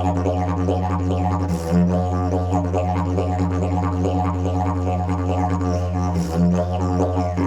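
Fiberglass triple-slide didgeridoo played as a continuous low drone, with shifting rhythmic patterns in its upper overtones. The drone dips briefly about one and a half seconds in and again near six seconds.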